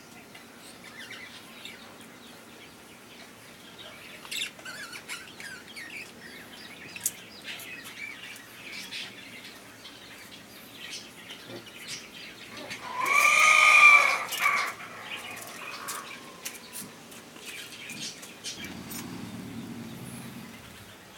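Puppies play-fighting, with scattered small squeaks and scuffles, then one loud high-pitched yelp about 13 seconds in that rises and falls and lasts about a second and a half.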